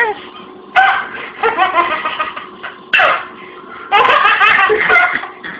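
A baby laughing in several short bursts of giggles, with brief pauses between them.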